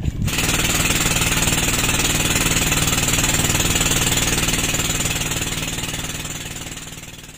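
A small engine running steadily, fading out near the end.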